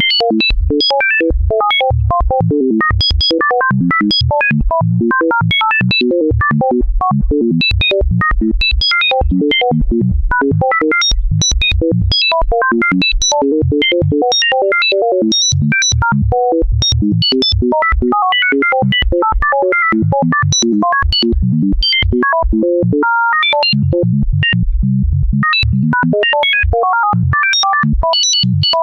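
Pure Data synthesizer patch playing a rapid stream of short electronic bleeps at randomly scattered pitches, several per second, from deep low notes to high blips. The side channel of the mid/side stereo signal is ring-modulated over a widened range and delayed.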